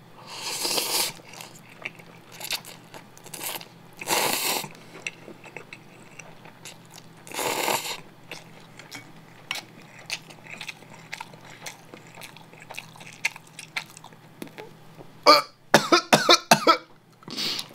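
A person slurping instant ramen noodles three times, with small wet chewing clicks between. Near the end come several coughing, gagging bursts.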